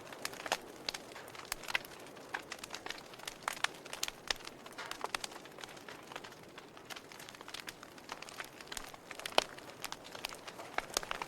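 Wood logs burning in a fireplace, crackling with irregular sharp pops over a soft hiss of flame. The loudest pop comes about nine seconds in.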